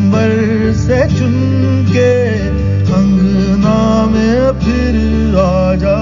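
Background music: a song with a voice singing a sliding melody over guitar and a steady bass.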